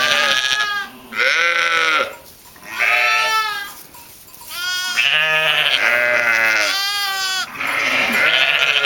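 Pomeranian Coarsewool sheep, ewes and lambs, bleating. Several loud wavering calls follow one another, some overlapping, with short pauses in the first half and nearly unbroken calling in the second half.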